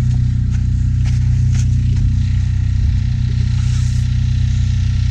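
Generator engine running with a steady low drone, a few faint knocks over it.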